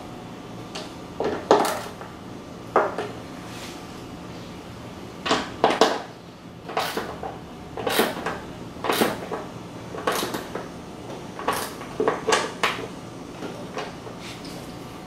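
Metal wrench clinking and knocking against the bolts and steel deck of a push mower as the deck bolts are checked and tightened. The knocks and clicks come irregularly, a dozen or so, some in short clusters.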